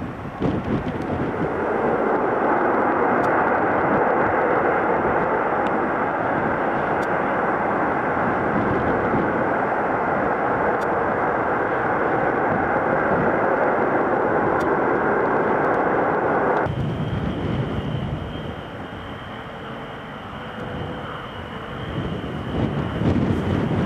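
A jet airliner's engines run loud and steady, heard across the airfield. About two-thirds of the way in there is an abrupt cut to a McDonnell Douglas MD-87 climbing out after takeoff: its engines make a quieter roar with a high steady whine, growing louder near the end.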